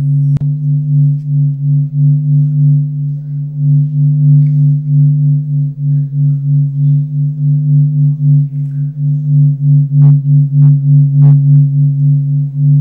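Low, steady droning tone accompanying the dance, swelling and fading in loudness about twice a second like a singing bowl. Near the end, a few evenly spaced clicks sound over it.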